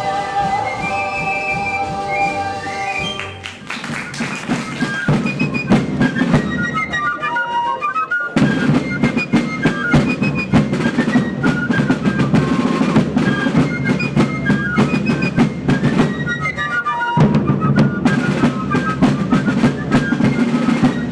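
Music: a held choral chord dies away about three seconds in, then a march with a high piping woodwind melody over snare and bass drums takes over, dropping out briefly twice and coming back.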